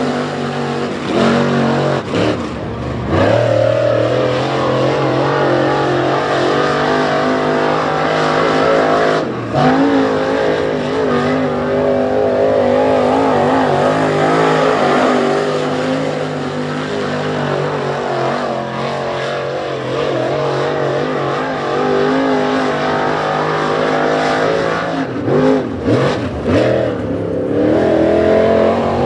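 Dirt late model race car's V8 engine at race speed on a dirt oval, heard from the stands: the pitch climbs as it accelerates, then falls each time the driver lifts off into a turn, with several quick lifts near the end.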